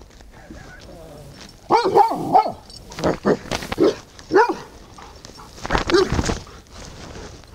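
A dog barking: about half a dozen loud, short barks, starting about two seconds in and spaced irregularly over the next four seconds.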